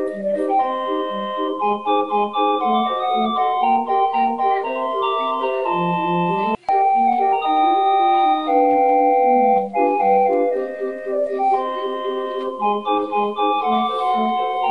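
Background music, an organ-like keyboard tune: held melody notes over a bass line bouncing in a steady rhythm, with a split-second break and click about six and a half seconds in.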